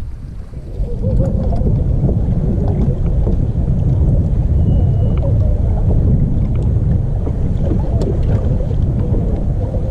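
Wind rumbling on the microphone of a camera mounted on an open bass boat, a loud low rush that rises about a second in and then holds steady.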